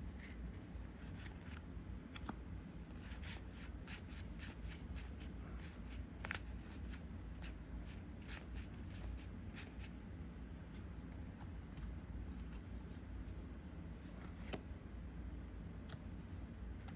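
Trading cards being handled and flipped through: a run of short, soft card clicks and slides, busiest in the first ten seconds and sparse after, over a steady low hum.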